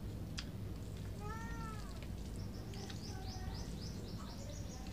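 A cat meowing once, a drawn-out call that rises and falls in pitch, followed by a quick run of high chirps, about four a second, near the end.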